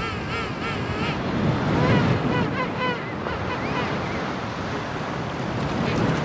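Surf breaking on a shore, with a string of short, repeated king penguin calls over it that stop about halfway through.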